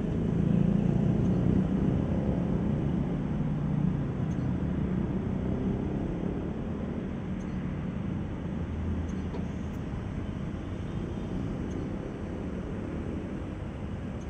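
Caterpillar excavator's diesel engine running steadily, heard from inside the cab as a low hum that eases off slightly toward the end.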